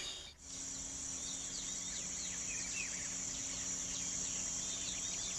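Amazon rainforest ambience: a steady high insect drone with many quick, falling bird chirps over it, after a brief dip near the start.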